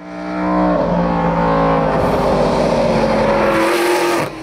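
Engine of the rebuilt BRM V16 Grand Prix car (Chassis 4), a supercharged 1.5-litre V16, running on track as the car drives by. The steady engine note fades in over the first second and dips briefly near the end.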